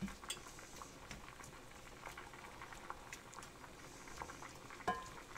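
Stir-fry sauce with beef and vegetables simmering in a cast iron skillet: faint bubbling with scattered small crackles and pops. A stirring utensil knocks once against the skillet near the end.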